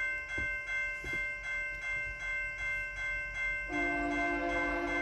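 Railroad grade-crossing warning bell ringing, about three strikes a second. About three and a half seconds in, a locomotive air horn starts sounding a steady multi-note chord over the bell. Two faint low thuds come in the first second.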